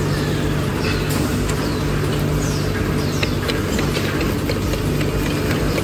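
Wood finger-joint machine line running: a steady motor hum with scattered light clicks and short falling squeaks.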